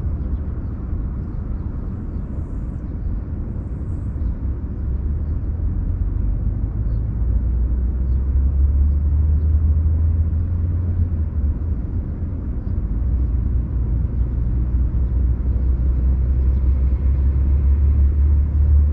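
Steady low outdoor rumble with no speech in it. It grows louder about a third of the way in, eases briefly in the middle, then swells again.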